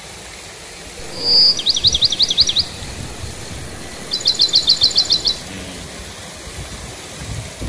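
Water from a man-made rock cascade splashes steadily into a pond. Over it a songbird sings two short, rapid high-pitched phrases, one about a second in and one about four seconds in, and these are the loudest sounds.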